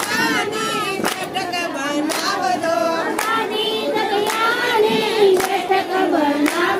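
A group of women singing together in unison, clapping their hands in a steady beat of about one clap a second.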